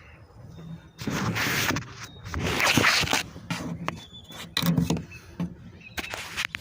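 Scraping and knocking of engine parts being handled during intake manifold removal: three noisy scraping bursts, about one, two and a half and four and a half seconds in, with a few sharp clicks between them.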